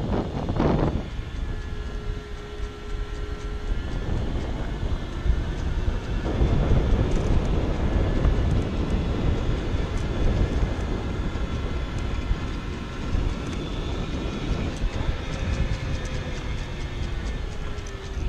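Motor scooter riding along a concrete road: low road and engine rumble with wind buffeting the microphone, and a faint engine note that slides down in pitch near the end.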